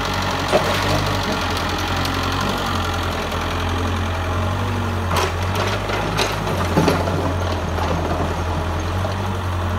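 Mitsubishi excavator's diesel engine running with a steady low drone. A few short clanks come through, about five and seven seconds in.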